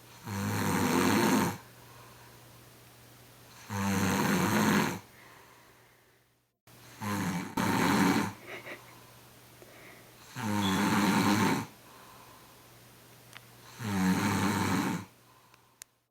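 A man snoring really loud in deep sleep after a night of drinking. Five rasping, buzzing snores come about every three and a half seconds, with quiet breathing between them.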